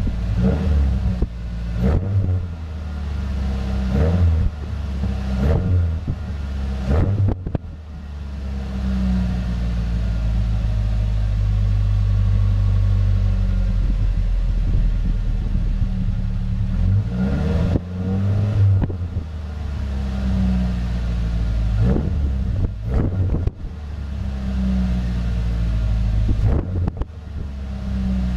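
Ford Ranger's 2.3-litre four-cylinder engine running through a new Dynomax cat-back exhaust with a low, deep tone. It is blipped up in short revs several times in the first seven seconds, idles steadily through the middle, then is revved in short blips again over the last ten seconds.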